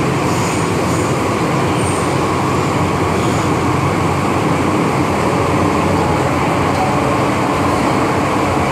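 MTR M-train electric multiple unit, heard from inside the carriage while running with its doors closed: a steady running noise of wheels and traction equipment.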